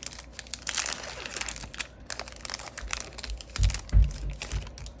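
Crinkling and rustling of handled material, with a run of small crackles. Two dull thumps land about three and a half and four seconds in.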